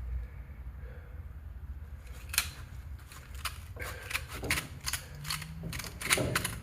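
Sharp metallic clicks and knocks, irregularly spaced, from the parts of a rusted, sand-fouled Glock 27 pistol being worked by hand; the loudest comes about two and a half seconds in, with a quick cluster near the end.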